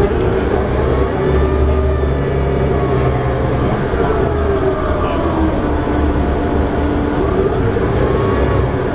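Cabin sound of a 2011 New Flyer D60LFR articulated bus cruising on the freeway: its Cummins ISL9 diesel engine and drivetrain drone over a steady road rumble. The drivetrain whine rises and falls gently in pitch as the speed changes.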